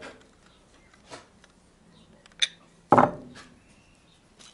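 Steel spanners clicking and knocking against a steel bicycle pedal as its axle lock nut is tightened after the cone bearing has been adjusted. There are a few separate light clicks, and the loudest knock comes about three seconds in.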